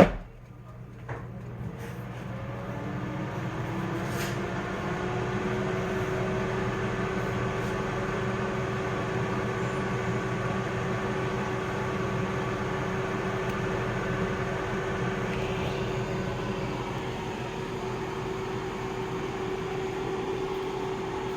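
A click, then a kitchen appliance's motor starts and runs with a steady hum and whirr. Its pitch rises slightly as it spins up over the first few seconds.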